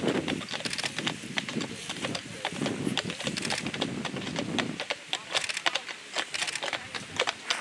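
A pair of draft horses walking on a paved towpath, their hooves clip-clopping in a quick, uneven run of sharp clicks that stand out more clearly from about five seconds in as the horses come close.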